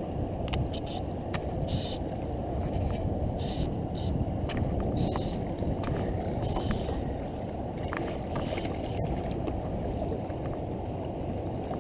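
Steady wind and water noise on an action camera's microphone, a dense low rush, with light clicks and knocks scattered through it.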